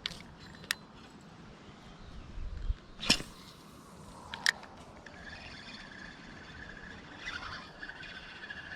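A spinning rod being cast: a whoosh through the air about three seconds in, then a sharp click from the reel a second and a half later. There are a couple of lighter clicks near the start.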